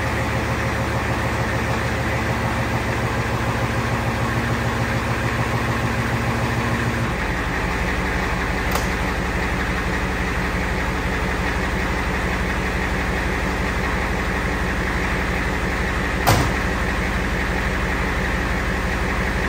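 Ford IDI diesel V8 idling steadily just after a cold start on glow plugs, with the cold-start advance on, warming up. Its note changes and settles about seven seconds in, and a couple of short sharp clicks come later.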